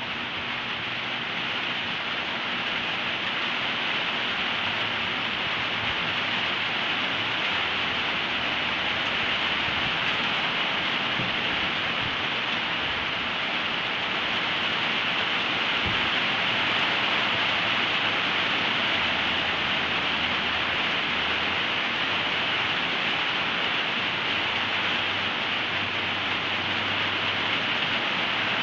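A steady hiss, even and unbroken, with a faint low hum beneath it.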